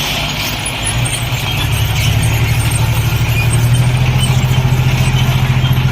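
Heavy diesel engine running, getting louder over the first two seconds and then holding a steady low throbbing drone.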